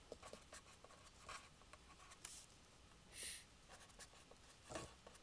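Faint scratching of a pen writing on paper in many short strokes, with a brief soft hiss about three seconds in.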